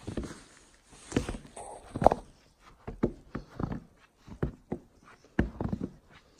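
Footsteps on the snow-dusted wooden plank deck of a suspension bridge: a walking pace of roughly two short, dull steps a second.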